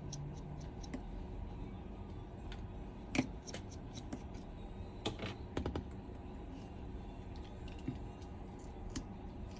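Small repair tools and tiny screws clicking and tapping against an iPhone 11's internal plate while it is being unscrewed, in scattered light ticks with sharper clicks about three seconds in and twice around five to six seconds in, over a low steady hum.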